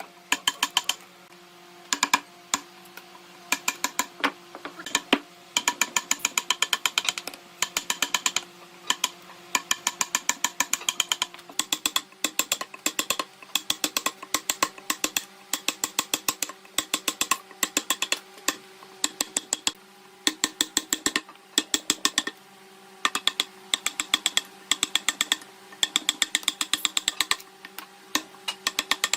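Bursts of rapid, sharp wooden clicks or taps, many a second, each burst lasting about a second with short pauses between, over a steady low hum.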